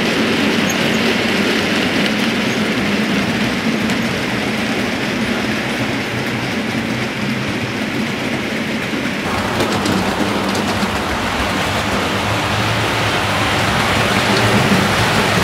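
OO gauge model goods train running on the layout track, a steady rattling running noise. About nine seconds in, the sound thins as the wagons clear, and it builds slightly again near the end as a model steam locomotive comes in.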